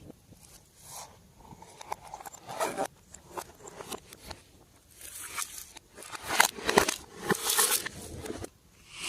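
Slime being squished, pressed and stretched by hand, making irregular wet crackling and clicking sounds. The sounds are sparse at first and grow louder and denser about halfway through.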